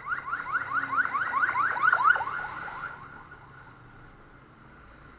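Electronic siren yelping: a fast train of rising sweeps, several a second, growing louder to a peak about two seconds in, then fading away about a second later.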